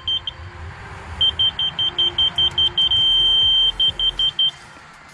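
Laser level receiver on a grade rod beeping rapidly, about five high beeps a second, the off-grade signal. About three seconds in it holds one steady tone briefly, the on-grade signal, then goes back to rapid beeps. An engine runs low underneath.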